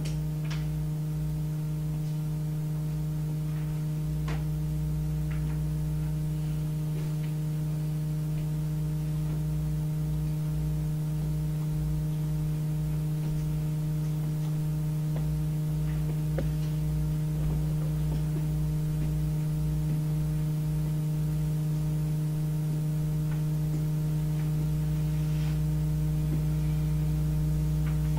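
A steady low electrical hum with a few overtones runs through the room's silence, with a few faint clicks scattered through it.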